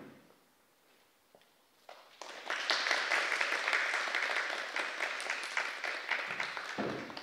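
Audience applauding. The clapping starts about two seconds in after a quiet pause, then fades away near the end.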